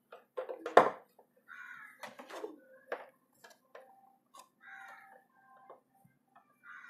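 Plastic clicks and knocks as tubing is pushed into the fittings of a reverse-osmosis water purifier's membrane housing, with one sharper knock just under a second in. A few short animal calls sound in the background over a faint steady hum.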